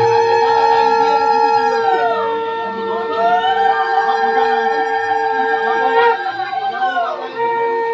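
Conch shells (shankha) blown together in long held notes. One holds a steady low note that breaks off about six seconds in. Another swells up to a higher note, falls away about two seconds in, rises again a second later and falls off again near the end.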